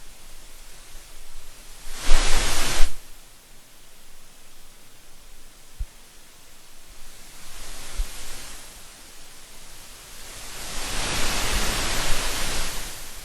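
Steady hiss with rushes of louder noise: a short one about two seconds in, a fainter one around eight seconds, and a longer swell near the end.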